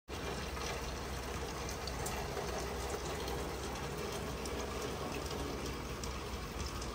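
Steady rain falling, with a low hum from running fans underneath and faint scattered ticks of drops.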